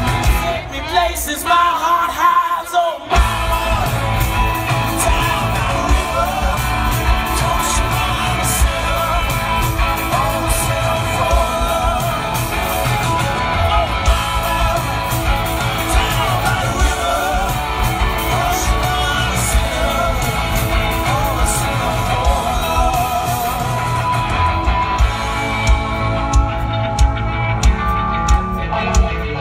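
Rock band playing live through a loud outdoor PA, heard from the crowd: electric guitars, drums and a singing voice. The bass and drums drop out for about two seconds near the start before the full band comes back in, and heavy drum hits mark the beat near the end.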